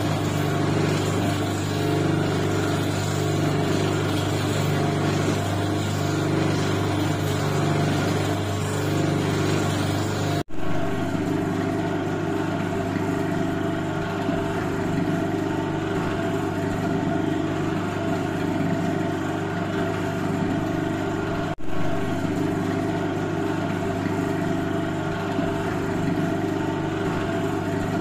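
Dodol stirring machine running steadily, its electric motor drive humming over an even rushing noise as the paddle turns through the thick mixture. The sound drops out for an instant twice.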